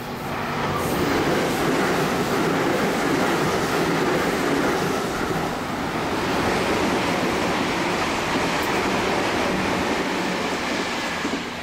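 An electric train passing on an adjacent track: a loud, steady rush of wheel and running noise that builds within the first second and dies away near the end. It covers the low hum of the train standing at the platform.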